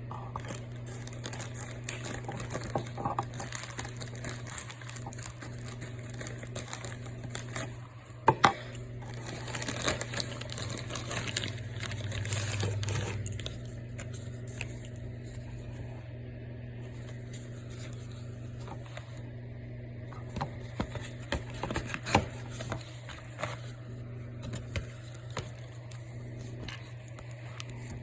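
Packaging handled by hand, crinkling and tearing, with scattered clicks and taps, over a steady low hum.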